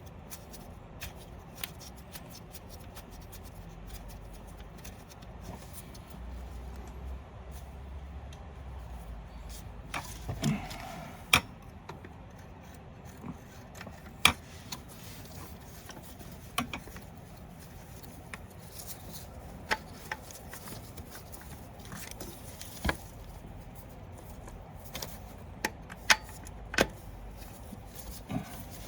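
Hand tools and small metal parts clicking and clinking, with scattered sharp clicks every few seconds, while an oil pressure sensor with a new crush washer is fitted and threaded into the engine.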